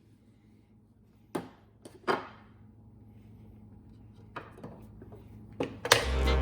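A few sharp knocks and clacks of objects being handled and set down on a hard surface, the loudest about two seconds in with a brief ringing tail, then a few softer taps. Music starts up near the end.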